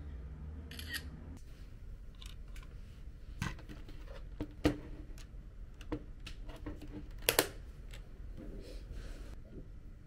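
Hard plastic items being handled and put away: a series of sharp clicks and taps, with a quick double click about seven seconds in.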